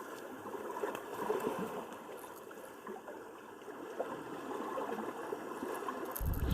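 Seawater washing and gurgling at the shoreline: a steady, shifting noise with small scattered splashes.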